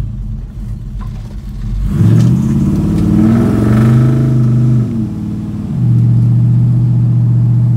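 Small-block Chevy V8 in a 1977 Chevy C10, heard from inside the cab through Flowmaster Hushpower HP-2 mufflers while driving. About two seconds in the revs climb under acceleration and the exhaust gets louder. The revs ease back near five seconds, then the exhaust holds a steady loud drone at cruise.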